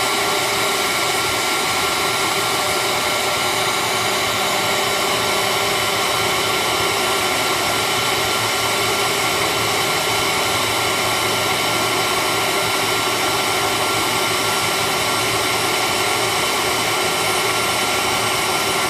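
fbots fcarve PCB Master CNC engraver's spindle running at high speed while its bit engraves aluminium: a steady whine of several held tones over an even cutting hiss.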